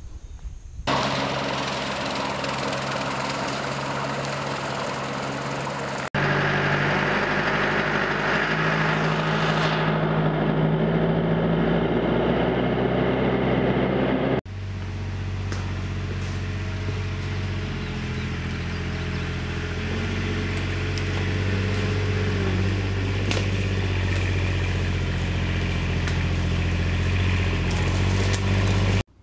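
Diesel engines running, in clips that change abruptly: a Branson 7845C tractor running louder from about six seconds in, then a Kubota RTV-X900 utility vehicle's engine running steadily through the second half.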